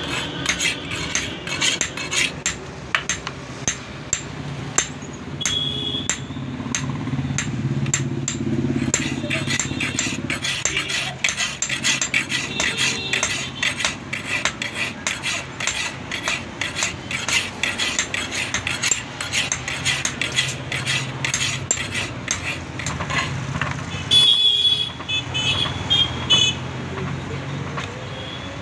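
Hand file scraping along the edge of a rusted steel dao blade in quick repeated strokes, sharpening a blunt cutter knife.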